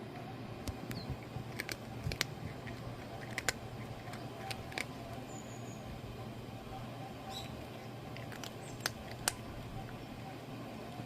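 A cat purring steadily and close up, with scattered small clicks over the purr.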